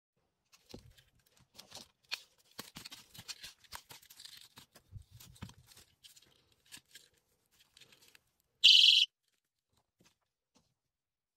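Packing handling noise, with scattered rustles and light clicks, then near the end a personal safety alarm briefly shrieks: one loud, shrill, high tone of about half a second.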